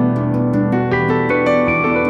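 Background music: plucked-string and piano-like notes over a sustained low bass tone, with notes starting at a steady, even pace.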